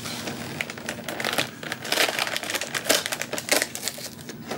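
A cardboard dog treat advent calendar being pried open by hand: the box and its door crinkle and crackle in a dense run of small clicks, getting louder about two seconds in.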